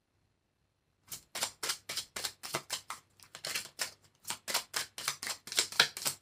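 A deck of Kipper fortune-telling cards being overhand-shuffled by hand: a quick run of crisp card clicks and slaps, about four to five a second, starting about a second in.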